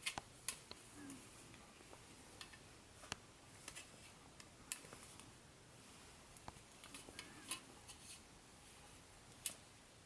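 Faint, irregular light clicks and taps of plastic model-train pieces and packaging being handled during an unboxing.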